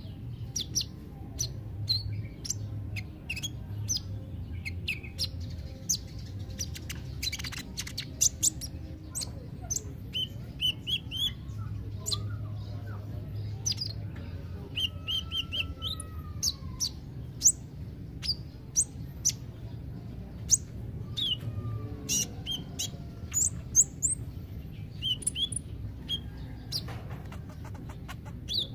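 Kolibri ninja (Van Hasselt's sunbird) chirping: a stream of short, sharp, high notes broken every few seconds by quick trilled runs. A steady low hum runs underneath.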